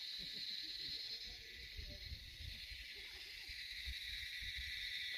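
Steady, high-pitched droning chorus of insects, cicadas or crickets, from the forest, with irregular low rumbling beneath.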